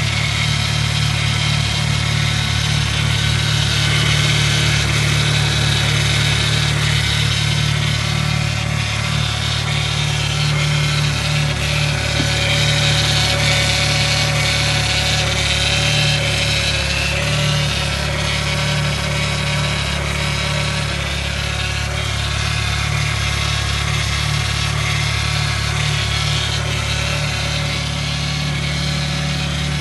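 A Chevrolet Meriva 1.4's hydraulic power steering pump making a steady rough, grinding whine over the engine idling. The noise comes from the pump running with its fluid level very low.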